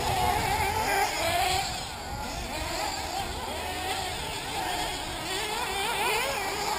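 Several 1/8-scale nitro RC buggy engines running and revving up and down as the cars race, their overlapping whines rising and falling in pitch.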